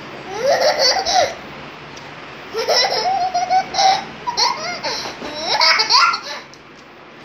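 Baby laughing in three high-pitched bouts, the middle and last ones longer.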